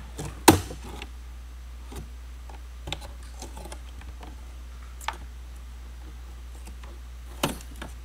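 Hard plastic clicks as the bottom cover of a Panasonic Toughbook CF-30 is pried up with a flathead screwdriver: one sharp snap about half a second in, then three fainter clicks spread out, the last near the end. A steady low hum runs underneath.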